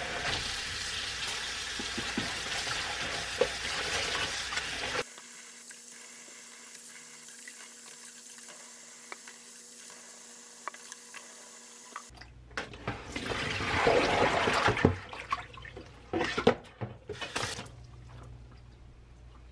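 Kitchen tap running onto spinach in a plastic basin in a stainless steel sink as the leaves are rinsed. The sound drops to a quieter trickle with small clicks after about five seconds, then louder splashing comes from hands swishing the leaves in the water-filled basin about two-thirds through.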